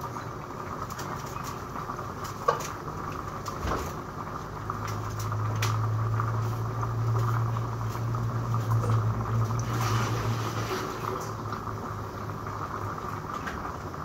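A pot simmering steadily on the stove, with a few sharp knocks from knife and dish work. A low hum comes in for about six seconds in the middle.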